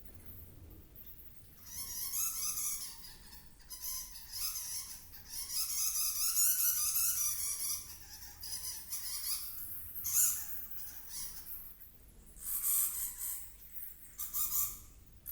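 Harsh, screeching animal calls in several bouts of one to a few seconds each, the longest running from about 4 to 8 seconds in, with short pauses between.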